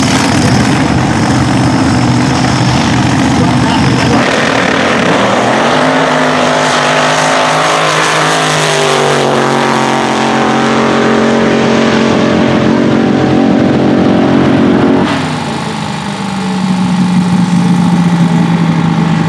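Supercharged V8 dragster running at full throttle as it launches and pulls away down the drag strip, its engine pitch shifting through the run. About fifteen seconds in, the sound cuts off abruptly and another engine idles steadily.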